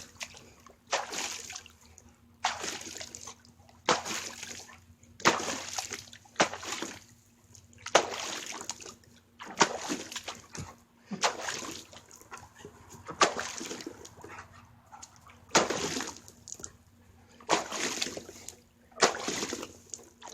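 A dog digging at the water in a kiddie pool with its front paws, splashing in repeated bursts about every one and a half seconds.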